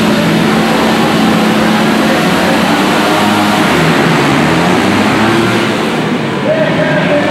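A pack of 100cc flat-track motorcycles revving together at the start line, then accelerating hard away as the race starts, with engine pitch rising near the end.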